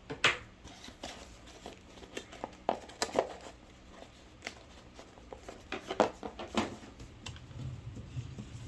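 Crinkling and rustling with scattered sharp clicks and taps as a battery is pulled out of its pack and handled.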